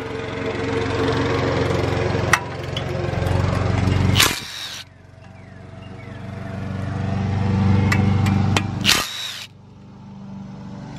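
Power tool motor running in long stretches at a steady pitch, its sound swelling and fading, broken by two short loud bursts of noise about four and nine seconds in.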